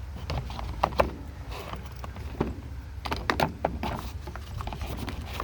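Small clicks and knocks of essential oil bottles and box contents being handled, in two clusters about a second in and around three to four seconds in, over a low steady hum.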